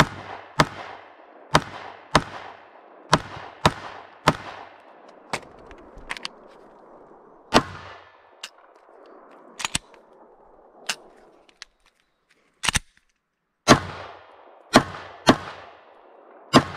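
Pistol fired rapidly in an IPSC stage, in quick pairs and single shots, each a sharp crack with a short echo. There are about eighteen shots, with a pause of a second or two about two-thirds of the way through.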